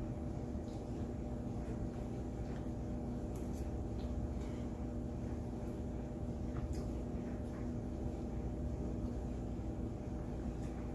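Faint chewing with a few light clicks, over a steady low hum of room noise.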